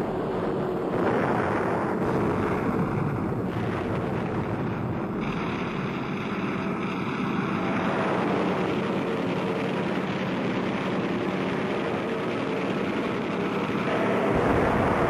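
Steady drone of a propeller aircraft's engine, a continuous noisy rumble with no distinct shots, growing a little louder near the end.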